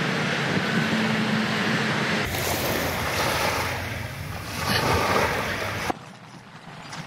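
Waves washing onto a beach, the surf rising and falling, with wind on the microphone. It follows a couple of seconds of steady traffic hum and drops suddenly to quieter outdoor ambience near the end.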